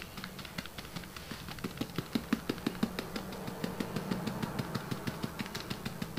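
Fingers tapping rapidly and steadily on a handheld ballast spreader, several taps a second, shaking fine model-railway ballast out over the track.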